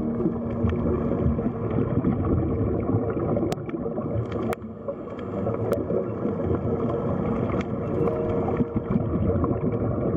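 Underwater ambience: a steady rushing, gurgling water noise with a few faint sharp clicks in the middle.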